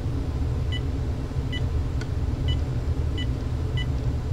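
Uniden EXAI7980 cordless phone handset beeping as its number keys are pressed one at a time: five short beeps, roughly a second apart, each a key's confirmation tone. A steady low hum runs underneath.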